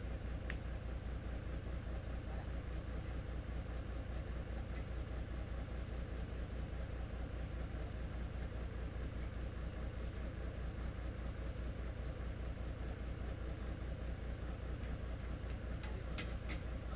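A Nissan Diesel (UD) truck's diesel engine idling, a steady low even throb, with a few light clicks about half a second in and near the end.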